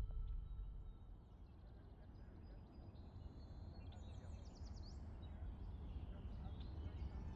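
Quiet outdoor ambience: a low, steady rumble with a few faint bird chirps about three to five seconds in.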